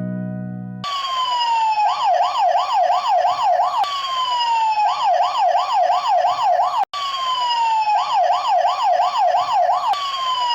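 Electronic siren sounding in a repeating cycle: a falling wail, then a fast warble of about three wobbles a second, the cycle starting over about every three seconds. It begins under a second in as a piano chord fades, and cuts out for an instant about two-thirds of the way through.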